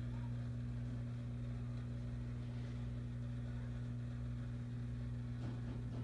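Steady low electrical hum of an aquarium pump motor, unchanging throughout, with a few faint clicks near the end.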